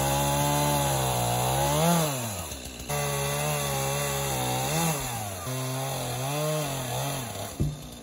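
Two-stroke gas chainsaw running at high revs while cutting through a felled log. Its pitch rises and falls sharply about two seconds in, resumes at full speed about a second later with a few small dips, and stops shortly before the end.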